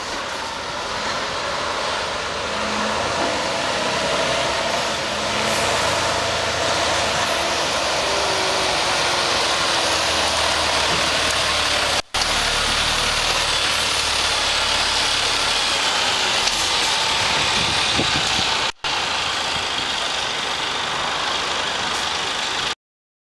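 Diesel engine of a Mercedes-Benz truck tractor unit running as the truck moves off and drives away, a steady rumble under a dense hiss. The sound breaks off briefly twice.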